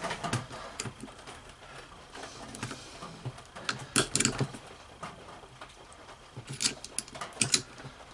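Steel hand tools clicking and scraping against the small split retaining clip on the plastic governor gear's shaft as it is pried at. The sharpest clicks come about four seconds in and again near the end.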